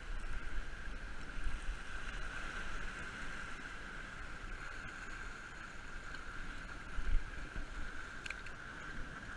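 Waves washing against the rocks of a jetty, with wind rumbling on the camera microphone, one louder gust about seven seconds in.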